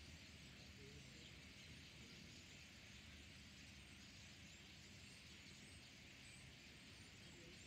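Faint, steady chatter of a flock of starlings over a low rumble.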